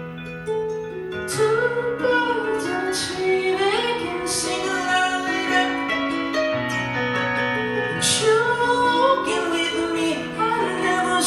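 Live song: a singer's voice over guitar. The guitar plays alone at first, and the voice comes in about a second in, singing long, gliding notes.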